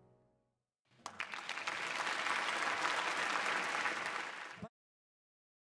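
The band's last note dies away, then audience applause begins about a second in and cuts off abruptly near the end.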